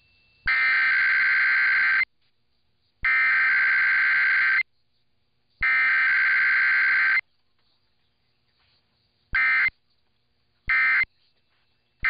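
Emergency Alert System SAME data bursts for a Required Weekly Test, heard over AM radio: three harsh, buzzy header bursts of about a second and a half each, a second apart. After a pause, two short end-of-message bursts come near the end.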